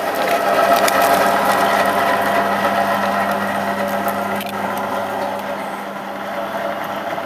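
Electric meat grinder running with a steady motor hum, mincing raw beef fillet through its fine plate; the hum eases slightly past the middle.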